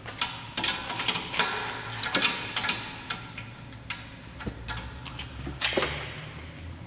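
Steel spanner clicking and clinking on a brake caliper bolt as it is fitted and turned, a string of irregular sharp metallic clicks, some with a brief ring.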